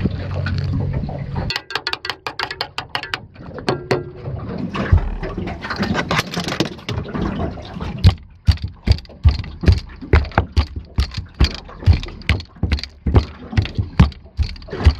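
Mechanical clicking and knocking, irregular at first and then settling into about two sharp knocks a second, after a low steady hum cuts off about a second and a half in.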